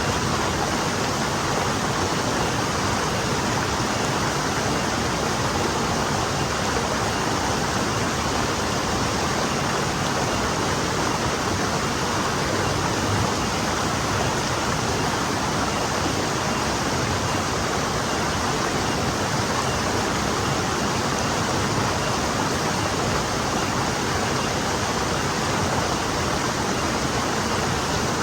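Forest stream flowing: a steady, even rush of running water with no separate splashes or other sounds standing out.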